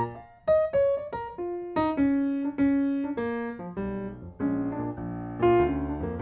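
Solo piano music: a melody of struck notes that ring and fade, over lower held notes.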